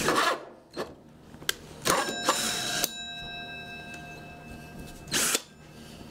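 Power drill with a hole saw stopping, then knocks and a metallic clatter as the hole saw is lifted off the pine board, leaving a ringing tone that fades over about a second and a half. A short burst of noise comes about five seconds in.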